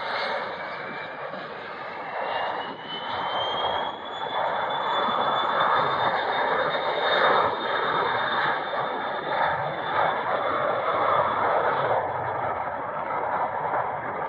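Cessna Citation XLS+ business jet's twin Pratt & Whitney PW545C turbofans at takeoff power on the takeoff roll. A high whine rises in pitch and levels off about four seconds in, over a loud rushing jet noise that swells at the same time.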